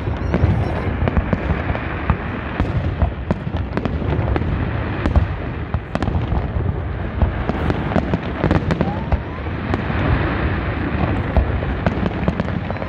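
Fireworks display: many sharp bangs and cracks of aerial shells launching and bursting in quick, irregular succession over a steady low rumble.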